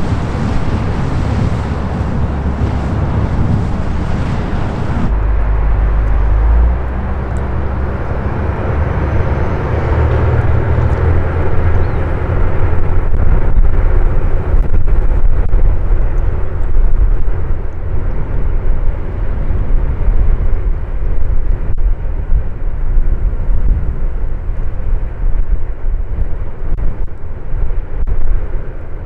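Outdoor river recording: for the first few seconds a passing passenger boat's engine, then a steady low engine drone from the river cruise ship Blue Rhapsody, growing louder from about halfway through as it approaches.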